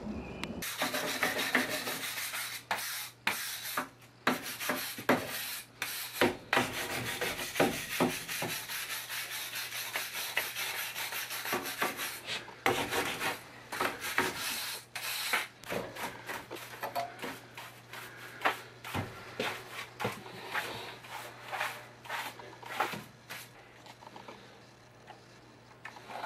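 Hand scraping and rubbing on a concrete foundation wall in quick, rough strokes, almost continuous for the first twelve seconds or so, then in shorter separate strokes. A faint steady low hum runs underneath.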